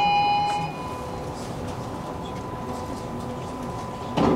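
Tram interior: an electronic chime of several held tones dies away in the first second over the tram's steady rumble, with a faint continuous tone beneath. A short, loud clatter comes about four seconds in.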